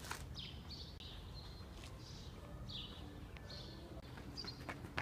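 Birds chirping: short calls falling in pitch, repeated about once a second, over faint low background rumble.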